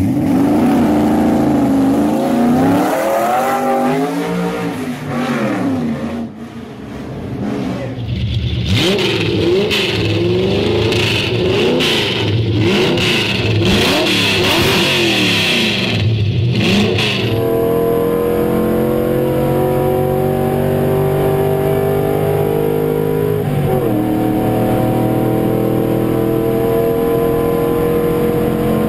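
A 2.5-litre air-cooled V8 revved hard in quick blips, its pitch sweeping up and down, giving a deep small-block-like sound. About two-thirds through it changes to the engine pulling steadily under load from inside the cabin, pitch climbing slowly, with one upshift.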